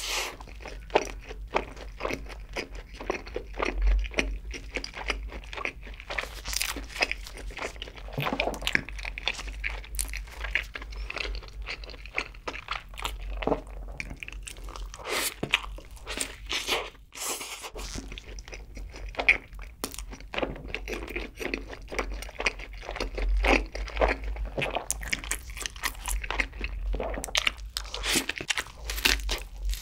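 Close-miked biting and chewing of a cheeseburger heaped with cheese sauce: wet mouth sounds and bites, with many short, sharp clicks at an irregular pace.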